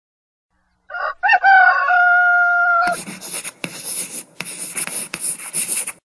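A rooster crows: two short notes, then one long held note. It is followed by about three seconds of rough rustling noise with short breaks.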